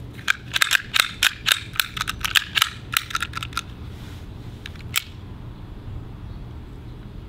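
Sig P365 CO2 BB air pistol's mechanism clicking as it is worked by hand. A rapid, uneven run of sharp clicks lasts about three seconds, followed by one more sharp click a second and a half later. The gun is misfiring and not feeding BBs.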